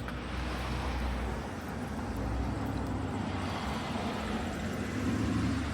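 Road traffic going by, a steady rumble, with a vehicle passing loudest near the end.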